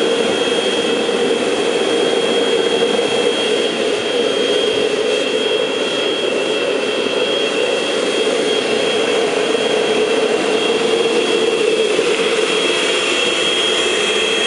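Homemade gas forge running, its burner fed with air by a vacuum cleaner used as a blower: a steady roar of flame and rushing air with a thin, high whine over it.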